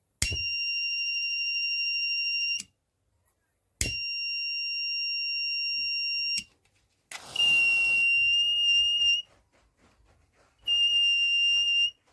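Buzzer of a homemade BC547 fire alarm circuit sounding a steady high-pitched tone in four separate blasts of about two seconds each, with short silences between them, as the alarm is set off. A brief rushing noise comes with the start of the third blast.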